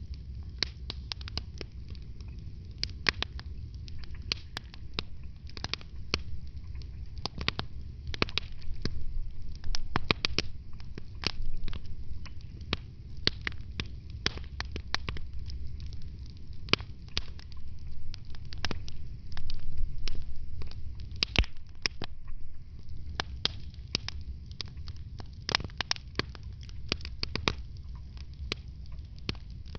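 Wood fire in a fireplace crackling, with frequent irregular sharp pops and snaps over a low, steady rumble of the flames.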